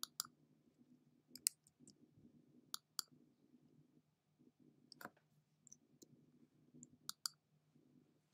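Computer mouse clicking now and then, about nine sharp clicks, several in quick pairs, over a faint steady hum.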